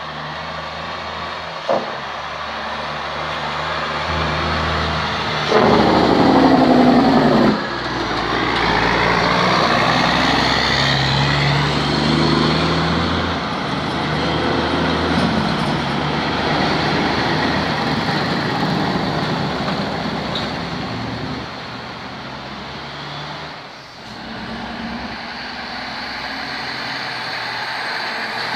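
Heavy diesel tractor-trailer trucks running as they pass. About five seconds in comes a loud two-second burst that falls in pitch and cuts off sharply, followed by an engine note that rises and falls.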